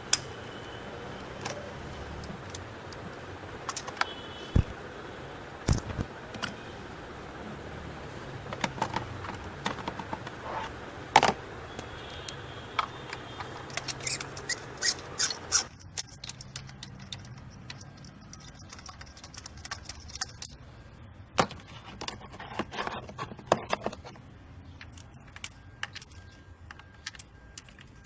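Metal hand tools clicking and clinking against bolts and engine parts as the coil and spark plug hardware on a misfiring Kia engine are undone, in irregular sharp taps. A steady background hum cuts off a little past halfway, leaving only the tool clicks.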